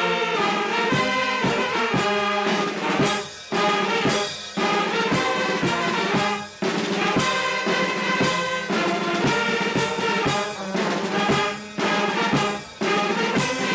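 A brass band playing a national anthem: sustained brass chords in phrases, with short breaks between them.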